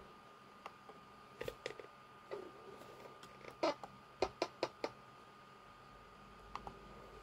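Scattered light clicks and knocks, with a quick run of about five between three and a half and five seconds in, over a faint steady thin tone.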